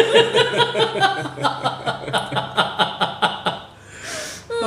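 A person laughing hard in a long run of rhythmic ha-ha pulses, about four or five a second, that tails off and ends with a breath in.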